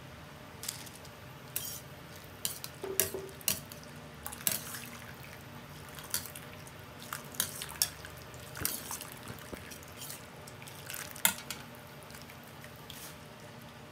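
A metal ladle and a wire-mesh strainer clinking and scraping against a stainless steel pot as boiled chicken feet are scooped out of the broth, with a few drips and small splashes of liquid. The clinks come irregularly, a couple of them sharper and louder than the rest.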